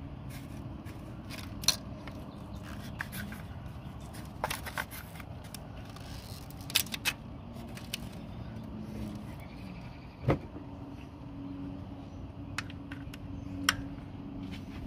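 Scattered sharp clicks and light knocks from a gloved hand and a socket ratchet working at an ignition coil and its wiring connector on the engine, over a steady low hum.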